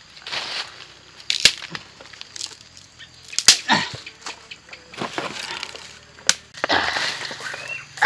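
Dry sticks and leaf litter being handled: rustling with several sharp cracks, the loudest about one and a half, three and a half and six seconds in.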